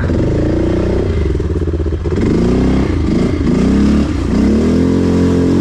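Quad bike engine running, revved up and down several times, then climbing and held at steady high revs near the end.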